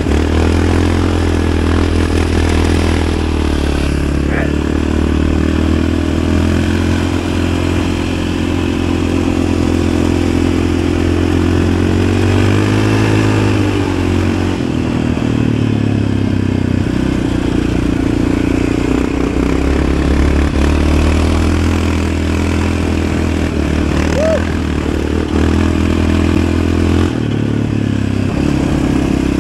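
Yamaha Raptor 700 ATV's single-cylinder four-stroke engine running under way on a trail ride at a fairly steady engine speed, revving up and back down briefly about halfway through.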